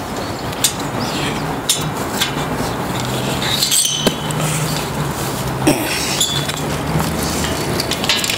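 Steady road-traffic noise with a low engine hum, broken by several sharp clicks and clinks of something knocking close by.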